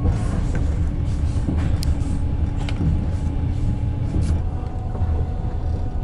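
Passenger train running, heard from inside the carriage as a steady low rumble, with a few faint clicks.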